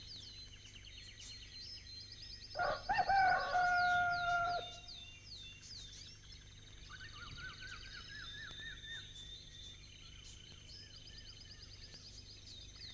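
A rooster crows once, a held call of about two seconds starting about two and a half seconds in. Behind it runs a steady chorus of small birds chirping and trilling. A quick series of repeated bird chirps comes about seven seconds in.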